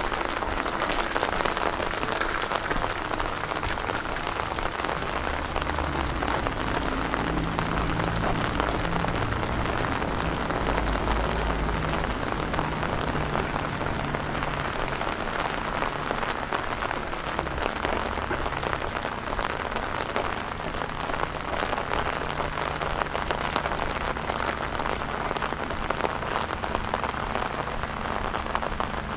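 Steady rain falling, with a dense spread of individual drop hits, and a low hum underneath that is strongest from about six to fifteen seconds in.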